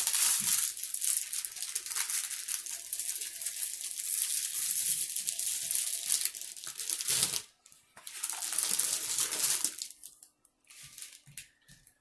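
Plastic crinkling as a diamond painting canvas and its plastic wrapping are handled and unrolled: a long stretch of crackling for about seven seconds, a short break, a second shorter stretch, then a few faint clicks.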